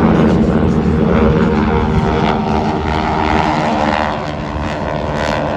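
Formation of three propeller planes flying over, their engines droning steadily, easing off slightly about four seconds in.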